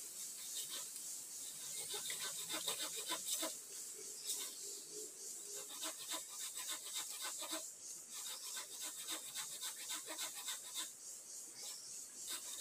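A hand saw cutting through a bamboo stalk near its base, in bursts of quick rasping strokes with short pauses between.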